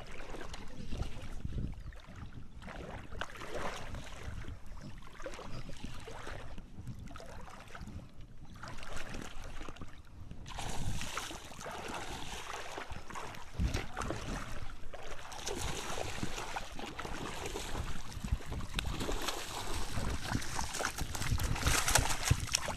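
Wind buffeting the microphone beside open water, with a snakehead splashing at the surface near the end.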